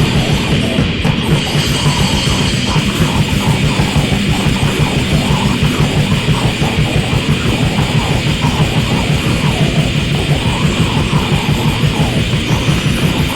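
Death grind / noise grind music: heavily distorted guitars and drums in a dense, noisy wall of sound, with a fast, even pulse in the low end.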